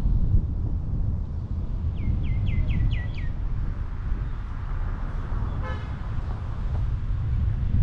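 Steady low rumble of wind and road noise from a car driving through town. About two seconds in a bird gives five quick falling chirps, and past the middle a car horn gives one short toot.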